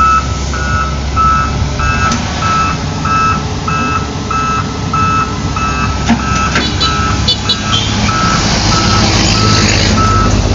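Reversing alarm on a heavy construction machine beeping steadily about twice a second over a diesel engine's low rumble, with a hiss swelling up near the end.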